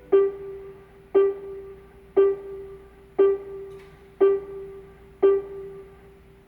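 Gogoro electric scooter's electronic sound effect: the same piano-like chime note struck six times, about once a second, each fading before the next.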